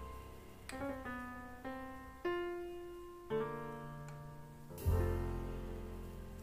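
Background piano music: single notes and chords, each struck and left to fade, with a fuller, deeper chord about five seconds in.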